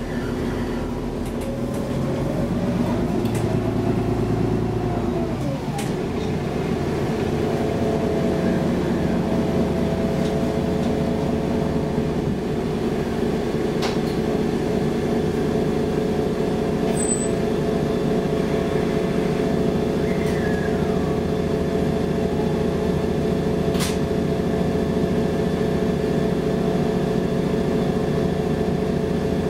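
Inside a Mercedes-Benz Citaro G articulated bus under way, its OM 457 hLA inline-six turbodiesel running. The engine note climbs over the first few seconds and drops sharply about five seconds in, then holds a steady drone. Occasional sharp rattles and clicks from the cabin.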